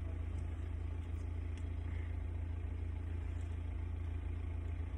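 A steady low hum, even throughout, with a few faint ticks above it.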